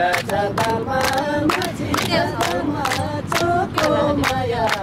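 A group of voices singing a Nepali dohori folk song unaccompanied, with rhythmic hand clapping at about three claps a second.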